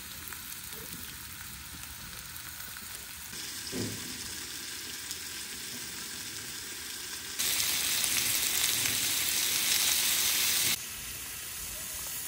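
Food sizzling and frying in a hot pan: a steady hiss that jumps abruptly in loudness several times, loudest for a few seconds in the second half.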